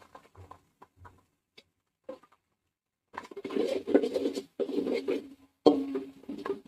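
Faint crackles of hot oil for the first few seconds, then, from about three seconds in, a metal ladle scraping and stirring around a metal pot as ginger-garlic paste is fried in oil with onions and mint.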